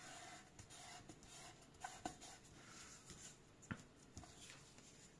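Faint rustle and scuffing of hands sliding and pressing a glued card panel flat onto card stock, with a few light ticks of paper.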